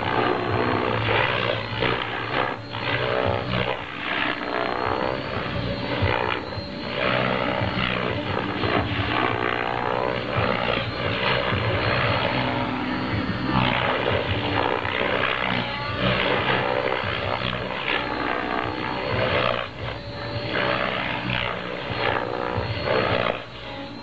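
Compass 7HV electric RC helicopter in flight with its rotor head at about 1900 rpm: rotor blades and motor running with a roar and whine whose pitch keeps rising and falling as the blades load and unload.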